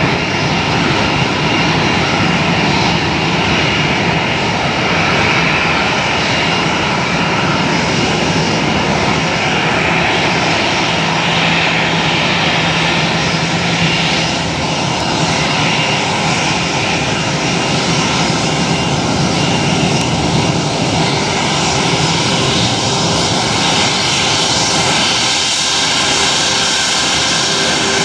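Airbus A321's twin jet engines running steadily at low power as the airliner taxis close past. A dense, even jet noise with several held whining tones, a higher tone coming in near the end.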